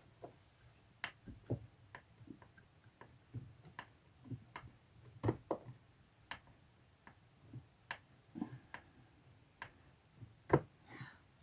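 Scattered small clicks and knocks of a screw being worked into a curtain rod bracket by hand, with a louder knock near the end. There is no motor sound, so no power drill is running.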